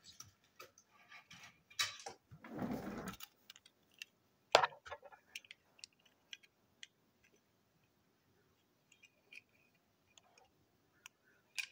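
Toy cars being handled in the hand: scattered light clicks and taps of their plastic and metal parts and wheels, with a short rustle about two and a half seconds in and a sharper click just after.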